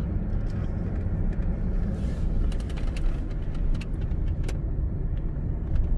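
Inside a moving car's cabin: steady low rumble of road and engine noise while driving slowly, with a few faint light clicks in the middle.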